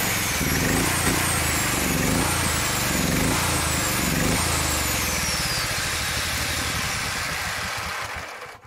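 Honda GX390 single-cylinder engine fitted with a belt-driven regenerative supercharger, running rough and surging, with a high blower whine that jumps up and sags again several times. Near the end the whine slides down and the engine dies. The surging and stalling are signs that it seems to be starving for fuel through a hose that is too flimsy.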